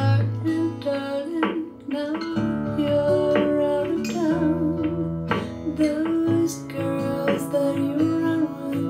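Music played back through a pair of Tannoy Legacy Cheviot loudspeakers: plucked acoustic guitar over a moving bass line.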